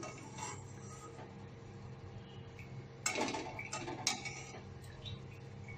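Perforated metal skimmer clattering against an aluminium kadhai while scooping fried namak pare out of the hot oil: two short metallic knocks about three and four seconds in, over a faint steady low hum.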